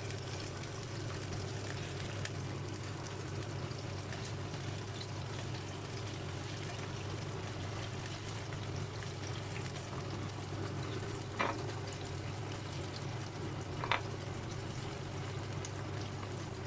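Chicken wings frying in oil in a pan, a steady sizzle, with two light clicks in the second half.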